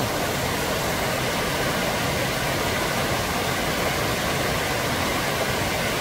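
Mountain stream running high, its swollen flow rushing over boulders in a steady, even noise of white water.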